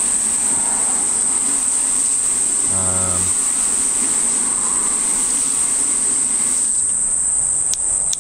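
Garden hose spray nozzle rinsing water over flat test panels: a steady hiss of spray that stops about seven seconds in. A brief low buzz comes about three seconds in, and a steady high-pitched drone runs under it all.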